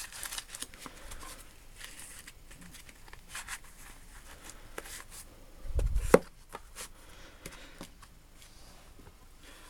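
Small metal lathe tooling being handled in a toolbox drawer: scattered light clicks and taps, with a louder knock about six seconds in.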